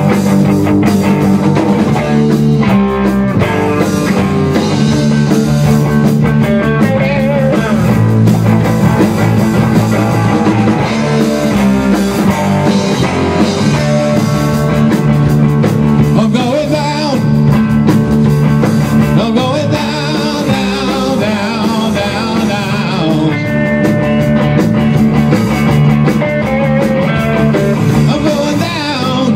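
Live rock band playing in a small rehearsal room: electric guitars through amplifiers over a Tama drum kit, in a steady rock beat.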